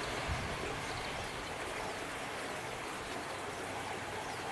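Container freight train receding into the distance after passing: its fading wheel-on-rail noise, an even hiss that slowly dies away.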